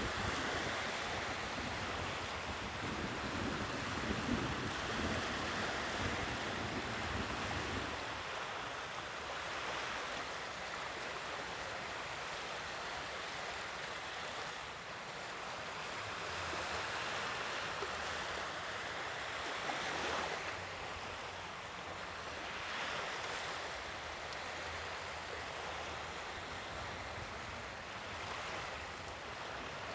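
Sea waves washing in and drawing back, a steady hiss of surf that swells gently every few seconds. For the first several seconds wind rumbles on the microphone.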